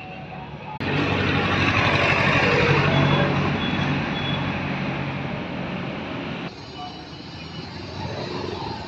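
Motor vehicle engine and road noise close by, a steady low engine drone under a loud rushing noise. It starts suddenly about a second in and drops to a quieter level of the same noise about six and a half seconds in.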